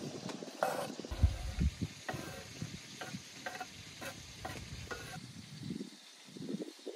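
A spoon stirring food in a cooking pot, knocking lightly against the pot about twice a second, with food sizzling.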